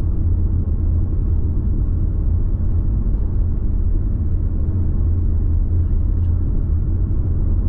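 Steady low rumble of a car cruising on a highway, heard inside the cabin: tyre and engine noise.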